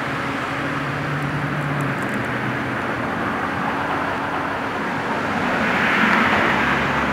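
Steady rushing of road traffic with a low hum, swelling about six seconds in.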